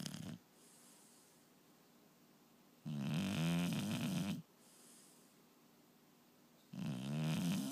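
Snoring in a steady rhythm: a snore of about a second and a half roughly every four seconds, each followed by a soft, faint breath out. One snore ends just after the start, another falls about three seconds in, and the next begins near the end.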